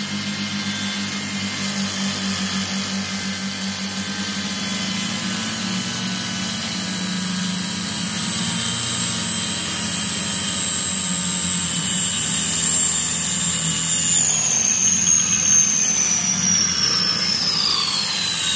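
RC car's motor and drivetrain whining at a steady high pitch as the wheels spin in place on a board in a burnout. Over the last several seconds the whine slides steadily lower as it slows down.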